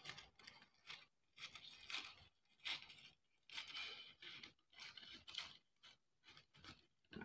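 Scissors snipping through thin paper, faint and irregular, about a dozen short snips and paper crinkles with brief pauses between them, as the paper edge is trimmed.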